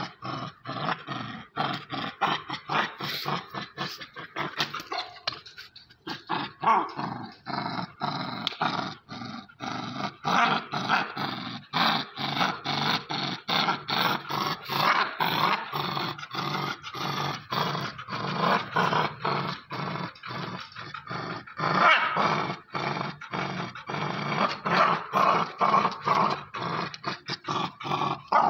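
Young American Pit Bull Terrier growling steadily while tugging on a rubber ring toy: play growling during a game of tug.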